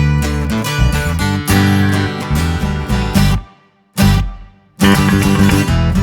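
Background music: a guitar-led track with a steady beat, broken by two brief gaps about three and a half and four and a half seconds in.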